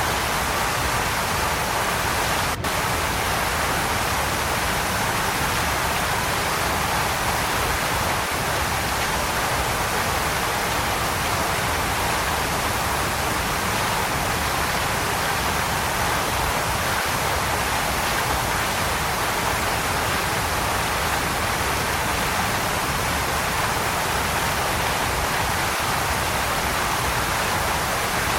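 Waterfall pouring: a steady, unbroken rush of falling water, with a split-second dropout about two and a half seconds in.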